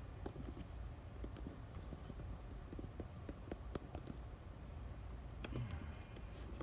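Computer mouse and keyboard clicking: a run of short, irregular clicks over a low steady hum.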